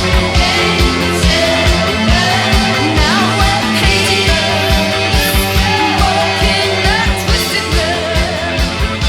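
Rock song playing: a steady drum beat under guitars and a singing voice.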